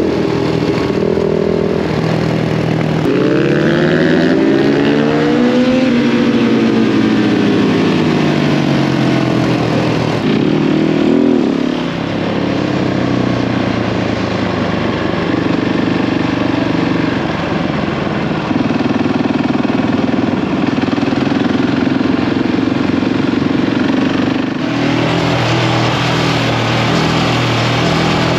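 Motorcycle engine running under way, its pitch rising as it accelerates and then falling back, then holding steadier.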